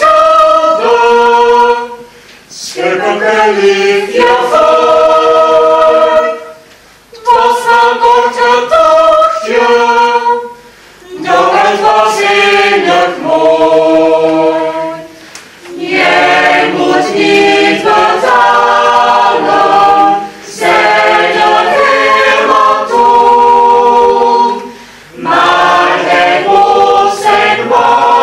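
Mixed chamber choir singing a cappella, in sustained phrases of a few seconds broken by short pauses for breath.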